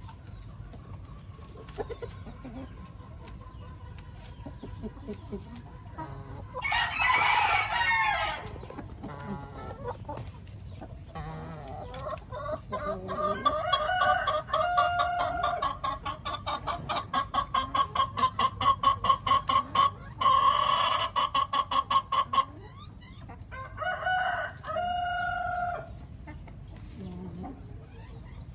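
Chickens clucking and a rooster crowing, with several loud calls, including a long run of quick repeated clucks in the middle.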